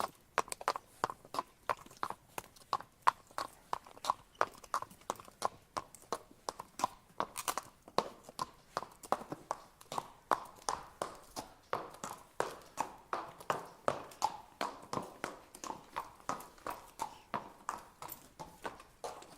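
A horse walking at a steady pace, its hooves clip-clopping on the ground in an even rhythm of about three sharp knocks a second.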